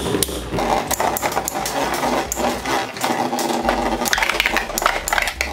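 Two Infinity Nado 3 metal spinning tops whirring in a plastic battle stadium, with many sharp clacks as they strike each other.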